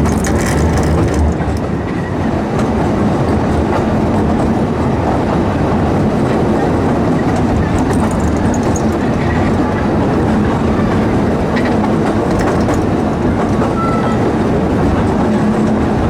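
Small steam train running along its track: a steady rumble of wheels on the rails with light clatter.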